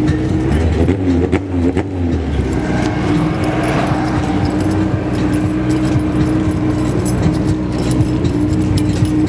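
Car engines running with a steady drone, the pitch briefly wavering up and down about a second in.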